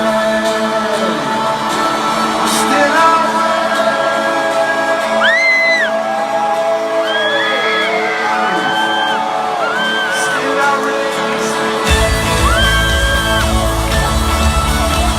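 Live rock band music in an arena, with a voice singing held notes over it and shouts from the crowd. About twelve seconds in, the drums and bass come in heavily.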